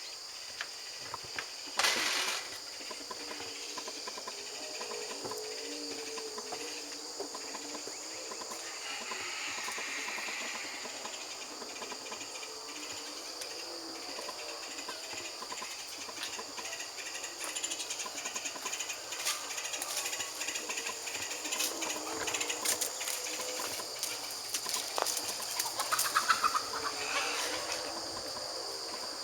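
Outdoor rural ambience: a steady high insect drone with scattered animal or bird calls and rustling clicks, and one louder knock about two seconds in.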